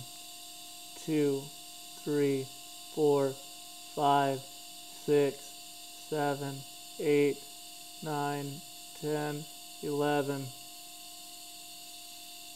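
Steady electrical hum of a TIG welding arc from a Miller Dynasty 210 on thin stainless tubing. Over it a man counts aloud about once a second, pacing each dip of the filler rod.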